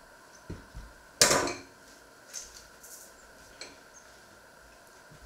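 Tableware clattering on a kitchen worktop: two light knocks, then one louder sharp clatter about a second in, followed by a few softer clinks.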